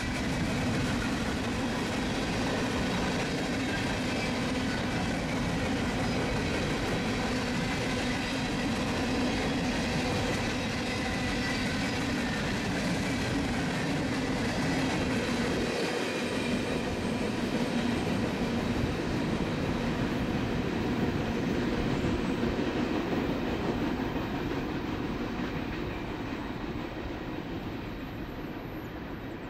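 Freight train of Herzog ballast hopper cars rolling steadily past, the wheels running on the rails with a faint steady ringing tone. The sound fades over the last few seconds as the end of the train moves away.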